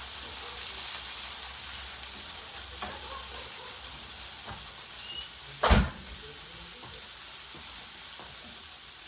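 Mixed vegetables sizzling in butter and garlic in a skillet, a steady frying hiss with a few faint ticks. One sharp knock comes a little past halfway.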